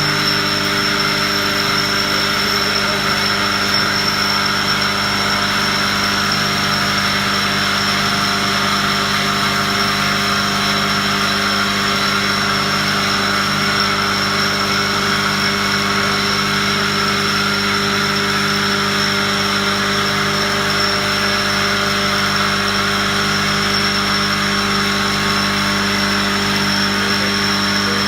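Factory machinery running steadily: a constant hum with a steady high whine over it, with no change in speed or load.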